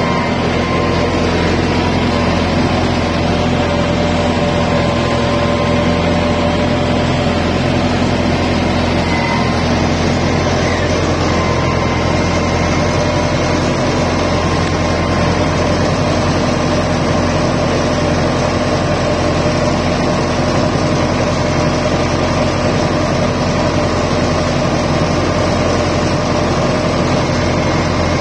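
Sonalika 90 hp tractor's diesel engine running at a steady speed while pulling a row-crop cultivator through the soil, heard from the operator's seat close to the upright exhaust stack.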